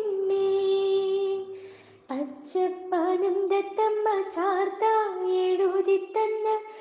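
A female voice singing a song: one long held note at first, a brief break about two seconds in, then a flowing melodic line with many ornamented turns.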